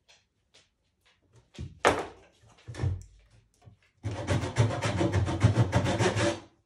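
A wide metal painting scraper worked against a red-painted wooden board: a sharp knock about two seconds in, then from about four seconds in a steady, rasping scrape of the blade across the paint for a couple of seconds that stops abruptly.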